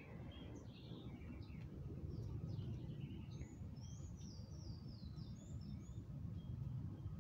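Small birds chirping and twittering: many short, high notes, with a quick run of descending notes about four to five seconds in, over a steady low outdoor rumble.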